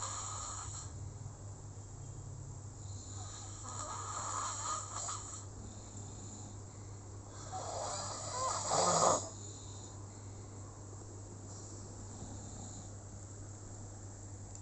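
Slow, steady snoring in sleep, a breathy snore about every four seconds, the loudest about eight to nine seconds in, over a steady low hum.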